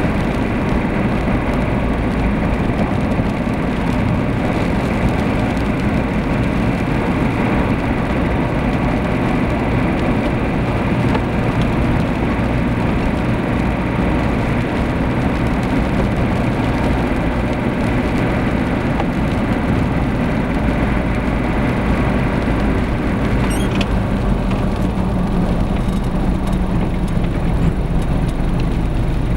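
Steady car engine and tyre noise heard from inside a moving car cruising along a road.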